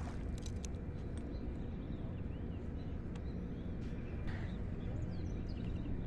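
Pond-side outdoor ambience: a steady low rumble with small birds chirping faintly, a few light clicks in the first second, and a brief rush of noise about four seconds in.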